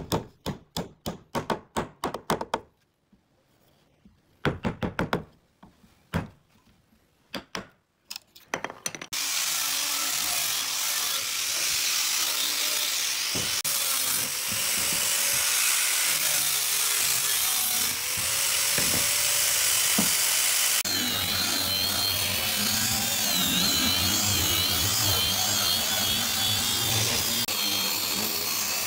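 A run of sharp wooden knocks, quick at first and then in short bursts, as protruding dowel pegs are cut off with a chisel. Then, from about nine seconds in, an angle grinder with a sanding disc runs steadily against the pine, with a wavering whine over the noise in the last third.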